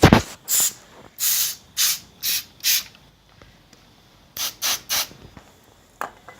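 Spray can giving a series of short hissing bursts, about six in the first three seconds and three more after a pause, with a faint click near the end.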